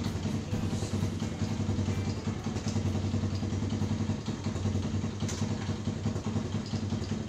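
Small motorcycle engine idling steadily.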